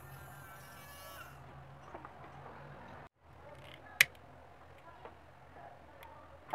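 Background music fades out about a second in. About four seconds in comes a single sharp click of a lighter being struck, with a fainter click near the end.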